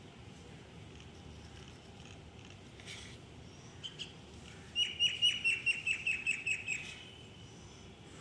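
A bird singing: a quick run of about a dozen short, falling chirps, about six a second, for some two seconds about halfway through.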